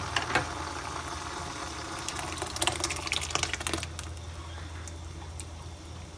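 Thick blended chili purée poured from a glass blender jar into a wok of hot oil and softened shallots, running and splashing in, with a run of sharp clicks through the middle and a steady low hum beneath.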